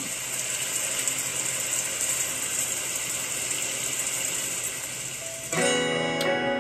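Opening of a K-pop ballad music video played back: a steady hiss, then about five and a half seconds in the music comes in with ringing instrumental notes.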